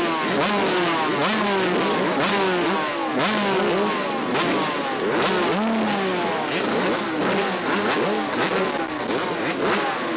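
Several motocross dirt bikes racing together, their engines revving up through the gears over and over, each rising note dropping back at a shift, with the notes overlapping.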